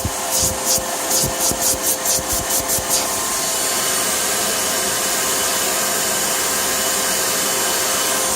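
An air leak hissing from the running M54 3.0-litre inline-six engine of a 2004 BMW X3, with a faint steady whine underneath. The hiss pulses about four times a second for the first three seconds, then holds steady.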